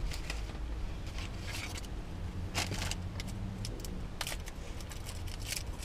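Paper wrapper crinkling and rustling in the hands in short, scattered crackles, over a steady low rumble inside a vehicle's cab.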